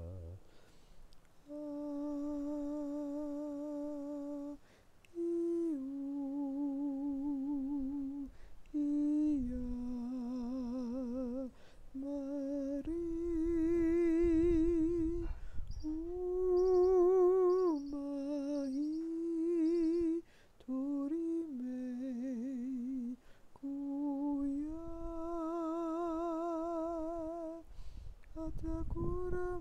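A man chanting slow, wordless humming tones, holding each note for one to three seconds with a wavering vibrato, the pitch stepping up and down from note to note. A low rumble of wind on the microphone comes and goes underneath.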